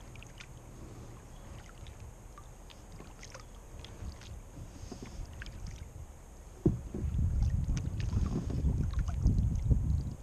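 Kayak drifting on calm water, with faint small ticks and lapping against the hull. About two-thirds in a sudden knock starts a loud, low rumbling noise that lasts about three seconds and cuts off abruptly.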